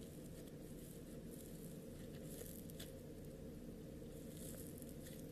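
Floam, foam beads in slime, squeezed and pressed between fingers, giving faint crackles and crunches, with short louder bursts about two seconds in and again about four seconds in. A steady low hum runs underneath.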